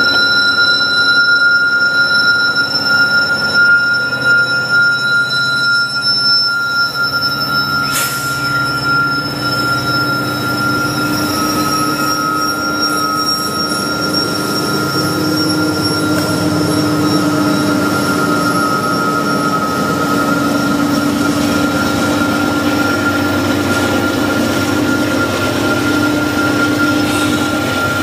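Loaded Norfolk Southern coal train climbing a grade behind an SD70ACe locomotive. The locomotives pass under heavy load with a steady, high screaming whine, then loaded coal hoppers roll by. A single sharp click comes about a third of the way in.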